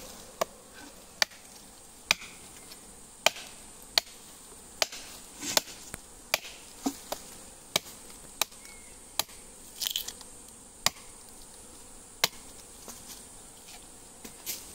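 Machete blade chopping into a tree trunk, sharp strokes a little over once a second, opening the hollow around a wild bees' nest. A steady insect buzz runs behind the chops.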